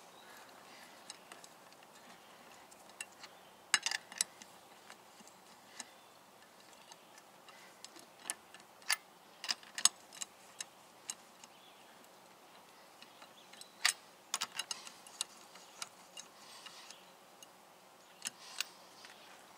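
Socket wrench on a car's lug nuts: scattered sharp metallic clicks and ticks in short irregular clusters as the nuts are run onto the wheel studs and snugged down.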